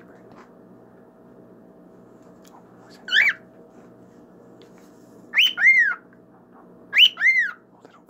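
Cockatiel whistling: a single call about three seconds in, then two pairs of rising-and-falling whistles, over a faint steady hum.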